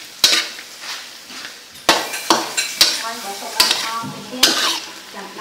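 Metal spatula stir-frying frog meat and basil in a metal pan, clanking sharply against the pan about six times over the sizzle of the frying food.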